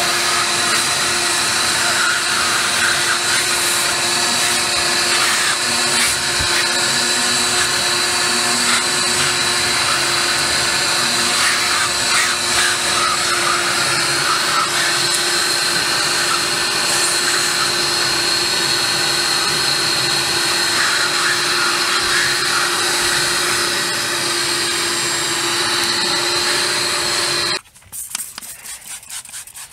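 Vacuum cleaner running steadily with a high whine as its hose nozzle sucks debris off a car's floor carpet. It stops abruptly near the end.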